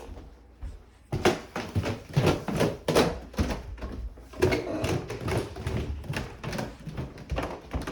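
Footsteps going down a flight of stairs, a run of thumps about three a second that starts about a second in, with the knocks of a handheld camera being carried.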